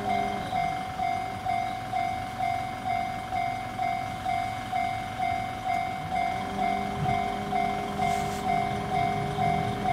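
Japanese railway level-crossing warning bell ringing its repeated 'kan-kan' tone, about two strikes a second, signalling that a train is approaching.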